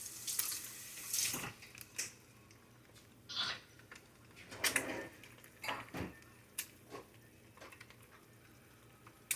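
Hands being washed at a kitchen sink: water from the tap splashing in short bursts, with a few light clicks and clinks.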